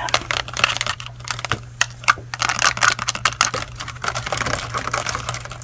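Rapid, irregular tapping and clicking of fingernails on hard objects, over a low steady hum.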